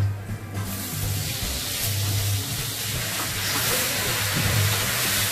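Food sizzling as it fries in a hot pan, the hiss starting about half a second in, over background music with a low bass line.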